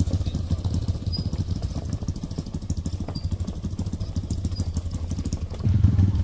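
Small motorcycle engines putting along at low speed, an even, rapid engine beat. It gets louder about five and a half seconds in.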